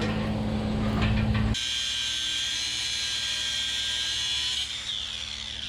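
Electric angle grinder switching on abruptly about one and a half seconds in and running with a steady high whine, then starting to wind down near the end, as used to cut a length of chain. Before it starts, a low steady hum.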